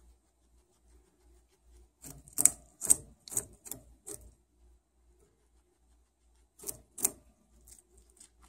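Guinea pig biting and crunching into a raw carrot: a quick run of crisp crunches, about two a second, then two more about three seconds later.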